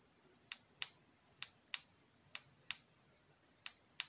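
A ring light's control button clicked four times in a row, each press heard as a double click, press and release, as the light steps through its colour modes.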